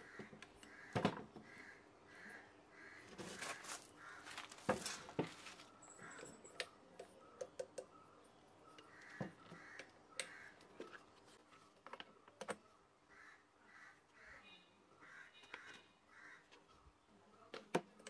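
Scattered knocks and metallic clicks of a washing machine motor being handled and turned over on a wooden table, with an Allen key set into the pulley's set screw near the end. A bird calls in a repeated series in the background.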